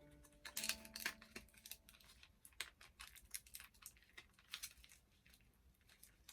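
Faint crinkling of plastic packaging and scattered light clicks of small plastic doll accessories being handled, in irregular bursts.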